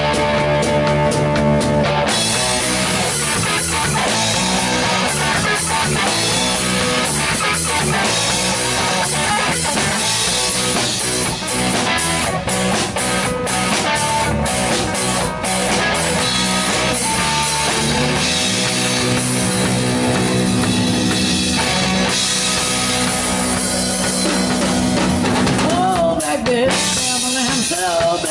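Live rock band playing: a Pearl drum kit, electric bass and electric guitar, with a woman's voice singing near the end.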